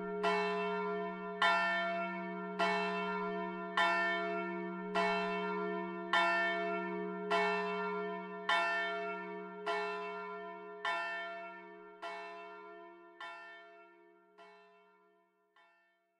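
A single church bell tolling, struck about once every 1.2 seconds with its low hum ringing on under the strokes. The strokes grow steadily weaker in the last few seconds as the ringing dies away, and it falls silent just before the end.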